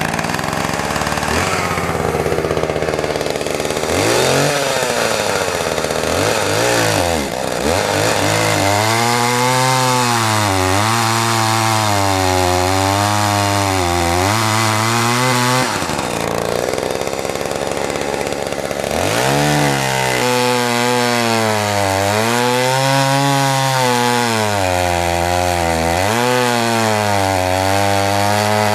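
Homelite 360 two-stroke chainsaw running at full throttle and cutting wood, its engine note dipping and wavering under load in two long cuts with a spell of free revving between them. It runs smoothly on its new intake boot.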